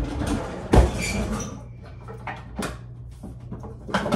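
Someone rummaging through makeup in a drawer or cabinet: items clattering and knocking, the loudest knock about a second in and a few sharper clicks later.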